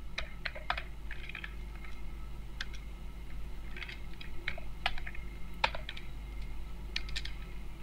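Computer keyboard keys being typed in short, uneven runs with pauses between them, entering a line of code letter by letter. A steady low hum runs underneath.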